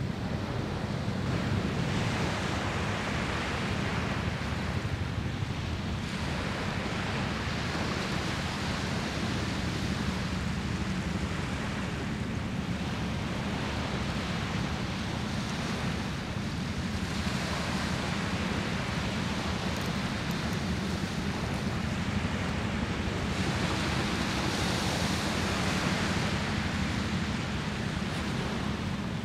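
Wind rumbling on the microphone, with waves washing ashore in a hiss that swells and fades every few seconds.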